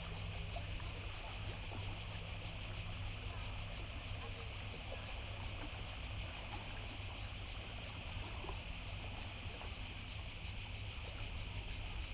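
Steady, high-pitched chorus of cicadas in the pine trees, with faint lapping of water on the rocky shore and distant voices underneath.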